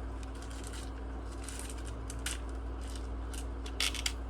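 Tiny metal laptop screws clicking and rattling as they are handled and picked through, in a string of irregular light ticks with a louder cluster near the end.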